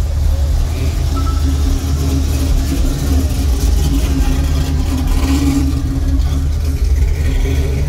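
A car engine running at a steady idle: a low, even rumble with a steady hum that is strongest midway through.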